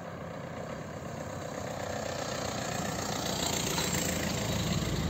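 A motor vehicle's engine running with a low, steady hum that grows gradually louder as it draws near.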